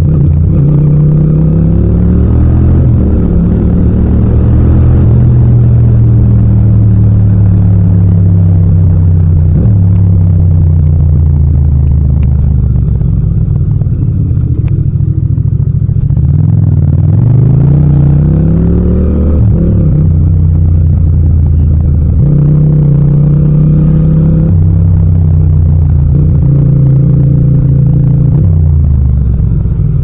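Yamaha MT-07's 689 cc parallel-twin engine running under way, its pitch climbing as it accelerates and dropping sharply at each gear change, with one long rising pull past the middle.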